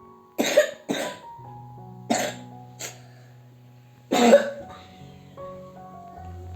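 A person coughing in short harsh bursts: two quick coughs about half a second in, another about two seconds in, a small one just before three seconds and a louder one about four seconds in, over soft piano music.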